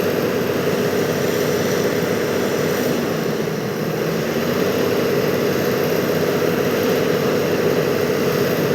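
Excavator engine running steadily under work, with a slight dip in level about three and a half seconds in.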